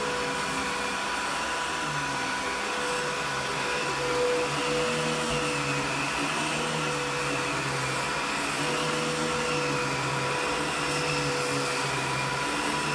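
Filter Queen Majestic canister vacuum running on high speed while its floor nozzle is worked over carpet. It gives a steady motor hum and whine, with part of its pitch wavering slightly.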